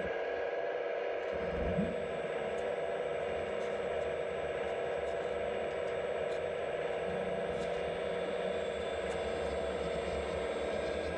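RC model excavator's hydraulic pump running with a steady mechanical whine as the arm and bucket are worked. A few faint clicks come through now and then.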